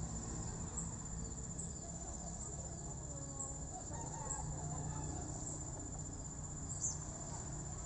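Insect chorus trilling steadily at a high pitch, pulsing faintly about once a second.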